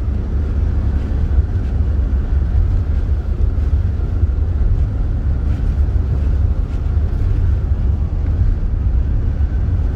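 Steady low rumble of an Opel Movano 2.3 biturbo diesel van driving on the highway under load, heard from inside the cabin, with no distinct knock standing out.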